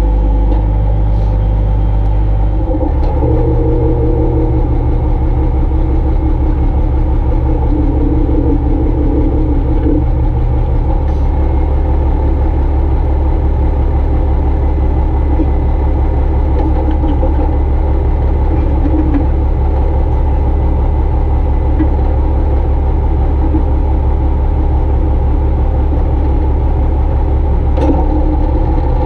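Tow truck's engine running steadily, driving the hydraulic winch as it pulls a vehicle in. The engine note shifts about three seconds in and again about eleven seconds in.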